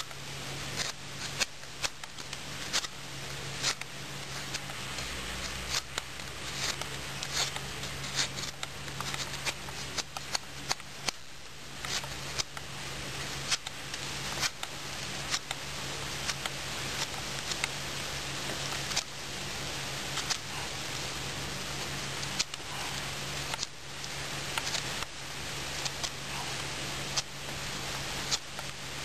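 Large fixed-blade Fox ST3-F knife cutting into a wooden branch: a run of short, irregular strokes, about one or two a second, over a steady hiss.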